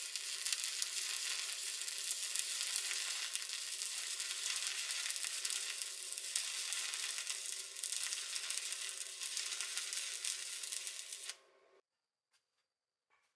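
Stick welding arc burning steadily with a dense crackle and a faint steady hum beneath it. The arc cuts off suddenly about eleven seconds in, followed by a few faint clicks.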